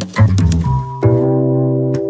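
Instrumental background music: a bass line under stacked chords, with a new chord struck about halfway through and held.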